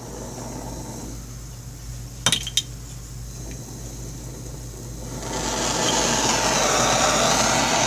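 Handheld propane torch: a steady hiss of gas, a couple of sharp clicks about two seconds in, then from about five seconds a louder, steady rushing as the flame burns. The torch is being used to heat a brake caliper to free its stuck pistons.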